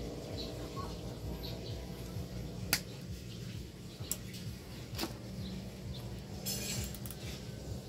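Two sharp plastic clicks about two seconds apart, then a brief rattle near the end, as hands work a scooter's fuel pump module apart to reach its fuel filter. Birds chirp faintly in the background.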